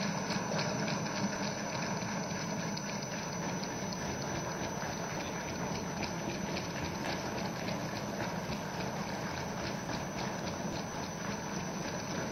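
Many legislators applauding in the assembly hall: a dense, steady patter of many small claps that keeps an even level throughout.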